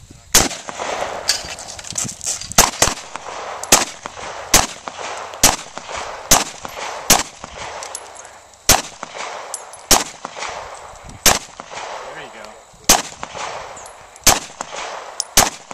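A string of about sixteen gunshots, roughly one a second with a couple of quicker pairs. Most of them come from a pistol fired at range targets.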